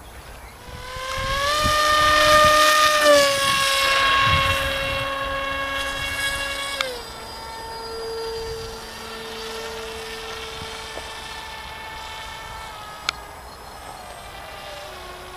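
High whine of an RC plane's 2200kv brushless outrunner motor and propeller in flight. It swells and rises in pitch about a second in and stays loud for a few seconds. Near the middle it steps down sharply in pitch and level, then runs on quieter.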